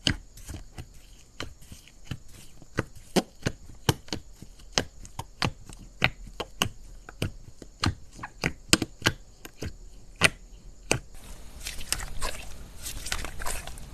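Slime being worked by hand, giving a steady run of sharp clicks and pops at about two or three a second, which turn into denser, quicker crackling about three quarters of the way through.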